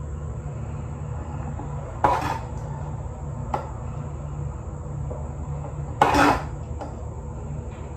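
Metal spoon scraping and knocking against the inside of a metal cooking pot as stew sauce is scooped out, twice: about two seconds in and again about six seconds in, with a small click between. A steady low hum runs underneath.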